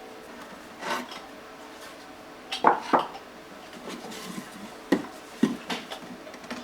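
A few sharp knocks and clatters of hard objects being handled and set down, a loud pair near the middle, with light rubbing and scraping between them.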